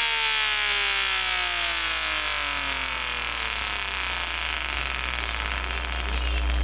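Homemade electronic siren, a flywheel-weighted motor driving a speaker through an amplifier, winding down: its wailing tone falls steadily in pitch as the motor slows and grows rougher and more motor-like. A low rumble swells near the end.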